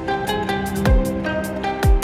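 Background music: a plucked-string melody over a steady low note, with deep bass hits that slide down in pitch, twice about a second apart.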